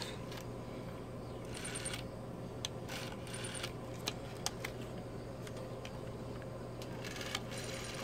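Faint clicks and rustling as an opened rotary telephone's metal chassis and coiled cord are handled and turned over, over a steady low hum.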